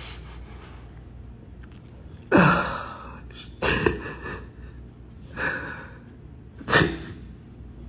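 Four loud, noisy gasping breaths, spaced about a second and a half apart.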